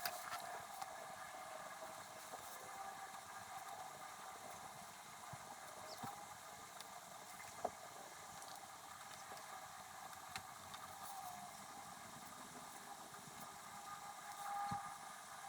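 Faint, sped-up scratching and light taps of a pen writing on paper, over a steady low hiss.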